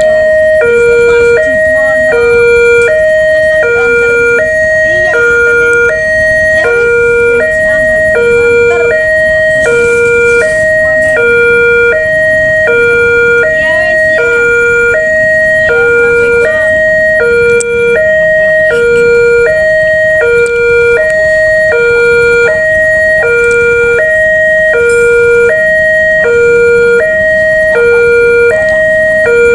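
Railway level-crossing warning siren sounding continuously, a loud electronic alarm alternating between two notes, each held about half a second. It is the crossing's warning that a train is approaching, and the uploader calls this siren unique and faulty.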